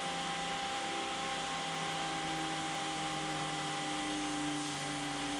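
CNC router running: a steady whirring noise over several constant hums, with a low hum that shifts in pitch about four seconds in.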